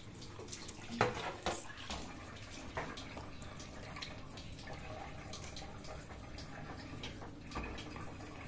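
Kitchen tap running in a steady stream into a stainless steel sink while dishes are rinsed under it, with water splashing and a few light knocks.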